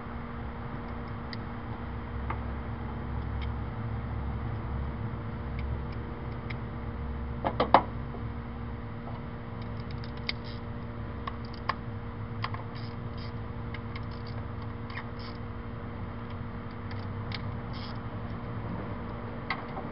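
Ratchet wrench and socket clicking irregularly while working on the engine, with a louder clatter of metal about eight seconds in, over a steady low hum.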